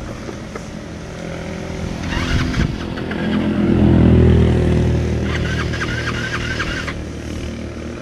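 A motor vehicle's engine running, growing louder to a peak about halfway through and then slowly fading, like a vehicle passing by.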